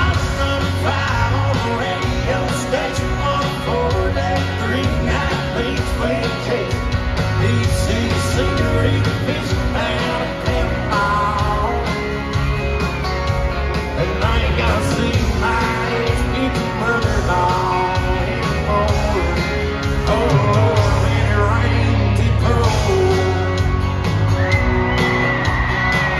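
Country band playing live in an arena: a lead vocal line over electric guitars, bass and drums, with a heavy steady low end. A long held high note comes in near the end.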